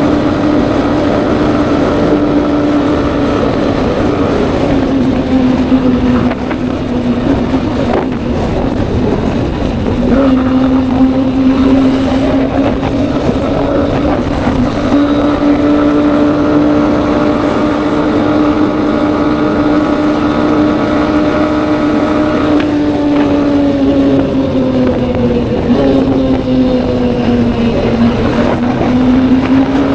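Honda motorcycle engine cruising at a steady speed under wind rush. The engine note holds even, sags for a few seconds twice as the throttle eases, and picks back up.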